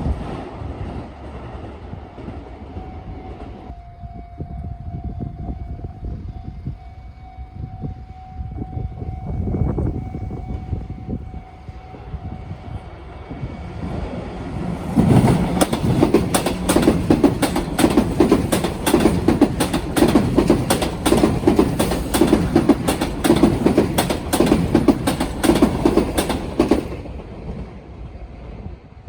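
Sōtetsu train running over the rail joints of a turnout at a level crossing. For about the first half there is a quieter rumble with a steady tone. From about fifteen seconds in the wheels clack rapidly and loudly over the joints for about twelve seconds, then stop.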